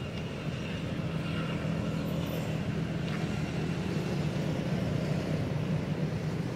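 A steady low rumble, like a motor running in the background, with no distinct events.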